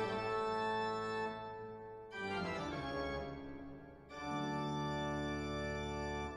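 Background music of slow, sustained chords, each held for about two seconds, changing about two seconds in and again about four seconds in.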